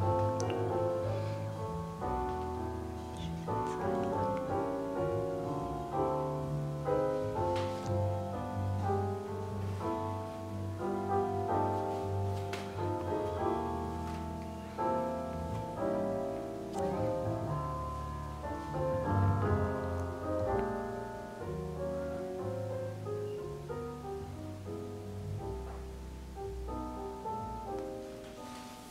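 Background piano music in a classical style, a steady run of notes over a bass line.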